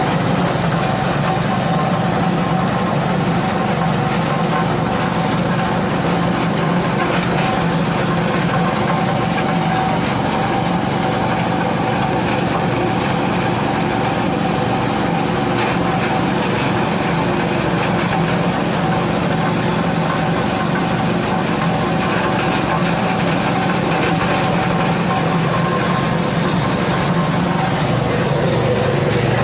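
Coconut-husk shredding machine (cocopeat and cocofiber grinder) running steadily with a constant hum, with no change in speed.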